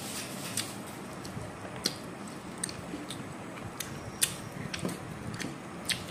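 Close-up eating of rice and chicken curry by hand: chewing with sharp, wet mouth clicks and smacks about once a second.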